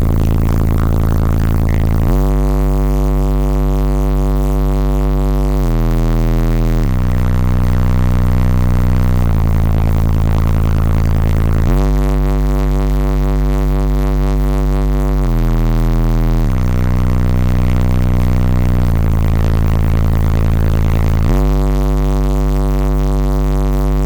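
Bass-heavy music played loud through a car audio system of nine Resilient Sounds Platinum 15-inch subwoofers. Long, very deep bass notes hold and then step to a new pitch every few seconds.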